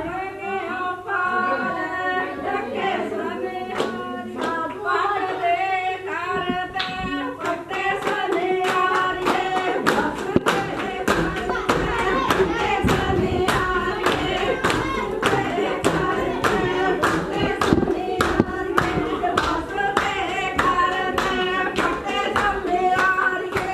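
A group of women singing a Punjabi folk song together. About eight seconds in, steady rhythmic hand clapping joins the singing and keeps the beat to the end.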